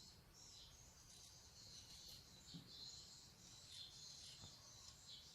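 Near silence with a faint, steady, high chirring of insects in the background.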